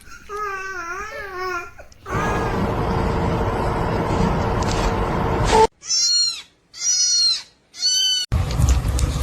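A run of abrupt cuts: wavering, babbling cries at first, then a stretch of noise with a steady hum. Then a kitten mews three times, high-pitched and falling, about a second apart, and a low rumbling noise follows near the end.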